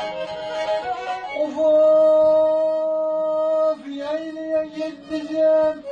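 Black Sea kemençe, a small upright bowed lute, played solo: a quick run of notes, then one long held note for about two seconds, then shorter bowed notes again.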